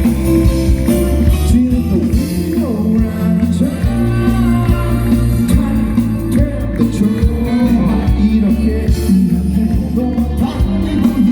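Live band music with a male singer.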